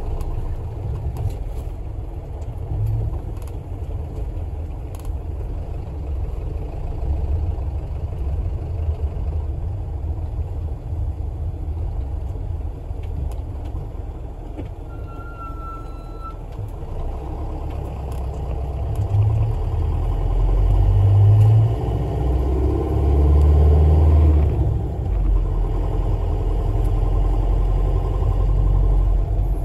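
Town community bus engine running with road rumble, heard from inside the cabin. It grows louder and deeper about two-thirds of the way through. A short high tone sounds briefly near the middle.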